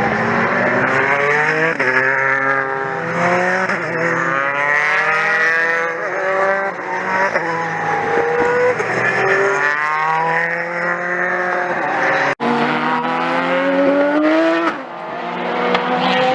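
Open-wheel single-seater racing cars at full throttle. Each engine's pitch climbs through the revs and drops sharply at every upshift, again and again, with more than one car sounding at once. The sound cuts out for an instant about twelve seconds in.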